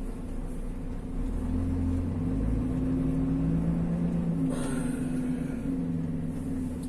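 Lorry's diesel engine running under way, heard from inside the cab, its hum stepping in pitch a few times. A brief hiss about four and a half seconds in.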